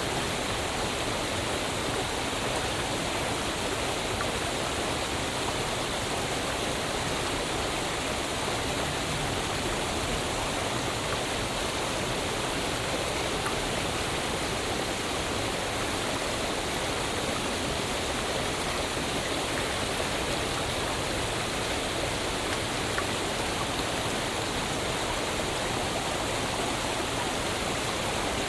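Waterfall: water falling and rushing in a steady, even roar of noise with no change throughout.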